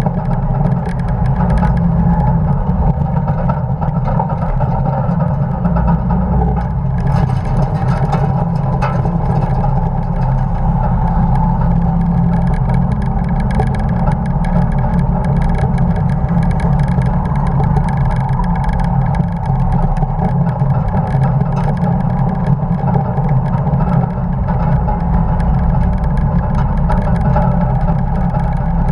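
1950 Dodge pickup race truck's engine running steadily at racing speed on track, loud throughout.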